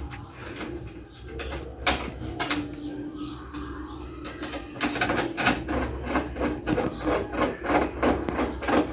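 Fast metallic clicking and ticking of hand tools and screws as a new manual window regulator is fastened into a Volkswagen Gol G2's front door frame. The clicks are scattered at first and become a quick, fairly even run of several a second from about halfway through.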